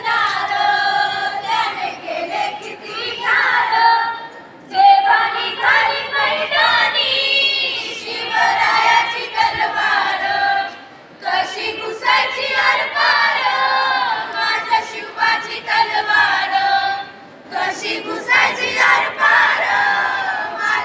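A group of schoolgirls singing together, in long phrases broken by short pauses about four and a half, eleven and seventeen seconds in.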